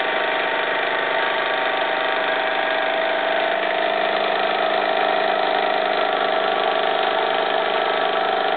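Jensen 75 model steam engine running steadily at speed, driving a belted line shaft and a geared hoist that is winding a load of about 16 pounds back up. The fast exhaust beats and the whir of belts and gears blend into one even, steady hum.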